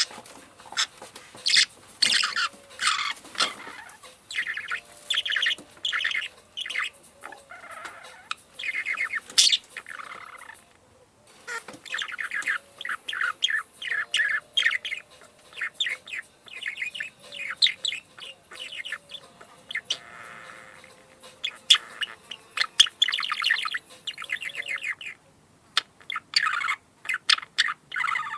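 Parakeet chirping and squawking in rapid runs of short calls, breaking off briefly twice.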